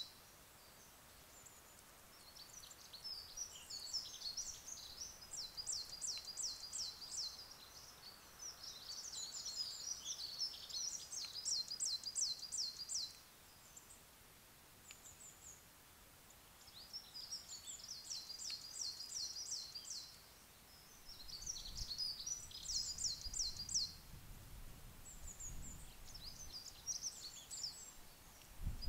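Woodland songbirds singing in bursts of rapid, high repeated notes, each phrase a few seconds long with short pauses between. A faint low rumble joins in over the last several seconds.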